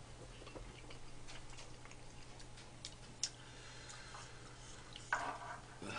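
Faint clicks and taps of chopsticks and a wooden ladle against bowls and the soup pan during a meal, with one sharper click about three seconds in and a short vocal sound from one of the eaters about five seconds in.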